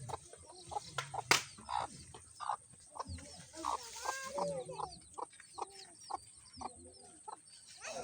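Mother hen clucking in short repeated calls, with her chicks peeping in high little chirps through the second half. A single sharp click sounds about a second in.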